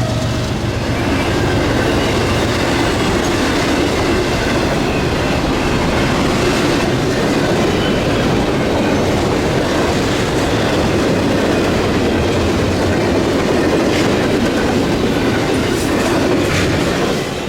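Intermodal freight train cars rolling past at speed: a steady rumble of steel wheels on the rails, with a few sharp clicks near the end, where the sound begins to fade.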